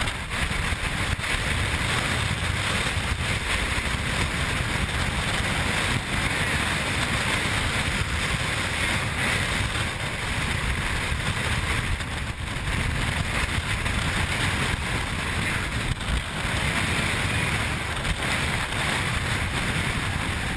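Steady rush of storm wind and heavy seas around a ship ploughing through rough water, with wind buffeting the microphone.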